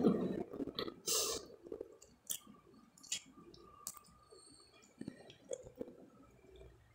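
Quiet eating sounds: chewing, with scattered short clicks and crackles as a crusty bread roll topped with fried egg is torn apart by hand.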